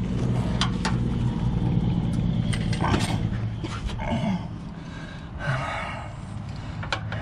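A low steady droning hum, loudest in the first three seconds, with a few sharp metallic clinks of sockets and hand tools being handled.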